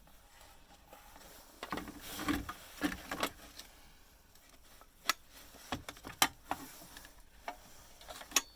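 Scattered clicks and knocks of metal and plastic parts and tools being handled while a bread maker is taken apart: a cluster of knocks about two seconds in, then sharp single clicks every second or so toward the end.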